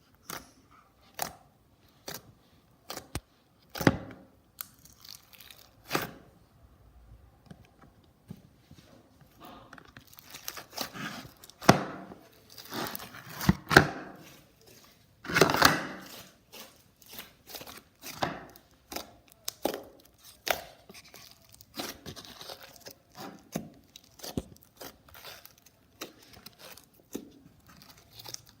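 Hands squeezing, stretching and poking homemade PVA glue and borax slime, making a string of short sharp pops and clicks, with a few longer crackling stretches around the middle.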